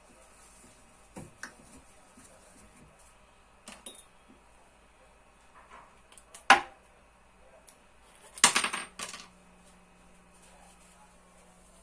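Small metal parts of a skateboard being handled during a bearing change. Scattered light clicks and clinks, one loud sharp clack about six and a half seconds in, and a short rattling clatter with a brief metallic ring about two seconds later.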